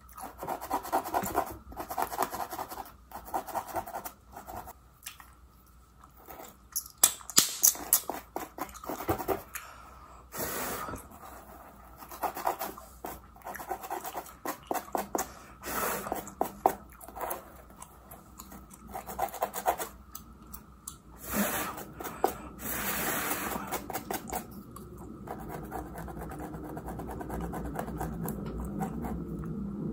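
Plastic comb scratching across a mannequin head's scalp and hair in runs of quick short strokes, with pauses between the runs.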